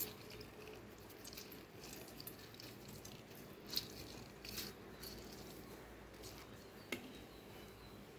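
Lemon halves squeezed by hand over a metal strainer set on a steel bowl: faint wet handling sounds with a few light clicks and taps of metal on metal.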